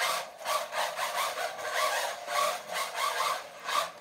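Small brushless RC drift car sliding on carpet under bursts of throttle: surges of motor whine and tyre scrub, about two or three a second.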